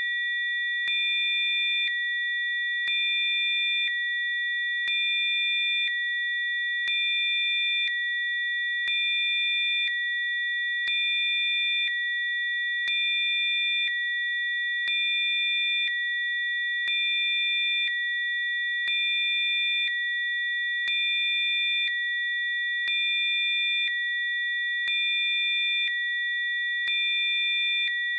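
Electronically generated pure sine tones (Rife frequencies): a steady high chord of several tones, with fainter tones, one of them low, switching on and off about every second, a faint click at each change.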